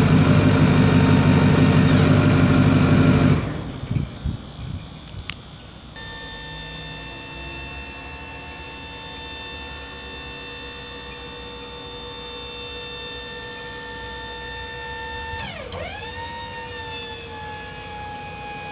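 Ford 6.4L V8 turbo diesel idling for about three seconds, then stopping abruptly. From about six seconds in, the electric-over-hydraulic dump hoist's pump motor whines steadily as the steel bed is raised; near the end its pitch dips sharply under load and settles slightly lower.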